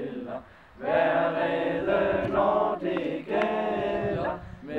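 A group of voices singing a song together in long held notes, after a short pause about half a second in.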